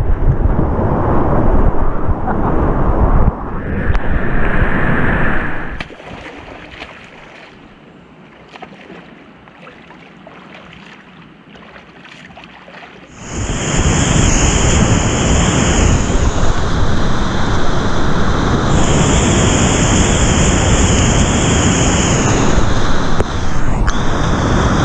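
Whitewater rapids rushing and churning close to a kayak-mounted camera. About six seconds in it drops to much quieter water for several seconds, then loud rushing whitewater returns about thirteen seconds in.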